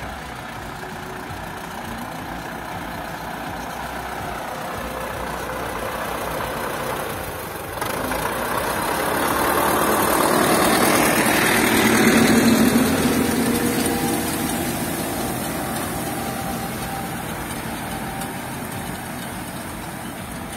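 YuMZ-6 tractor's four-cylinder diesel engine running as the tractor drives past pulling a hay rake, growing louder to a peak a little over halfway through and then fading as it moves away.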